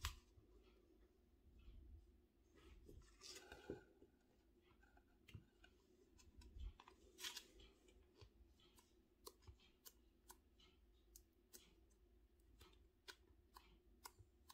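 Faint, crisp clicks and a few short scraping sounds, growing more frequent in the second half at about two a second.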